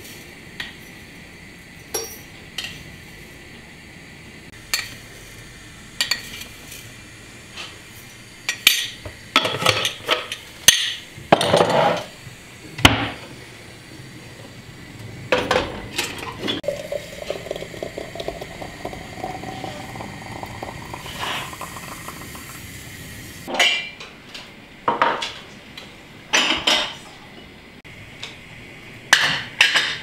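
Tea things being handled: an enamel kettle lid, a porcelain teapot and glass tea glasses knocking and clinking against each other and the counter in scattered bursts. Midway comes a few seconds of pouring whose pitch rises as the vessel fills.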